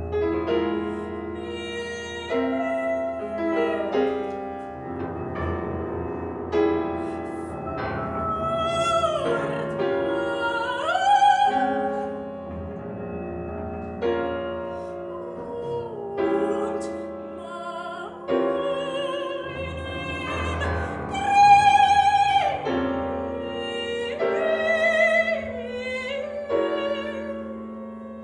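A soprano singing a contemporary classical art song with grand piano accompaniment. She holds long notes with vibrato, a couple of them reached by an upward slide, over piano notes and chords.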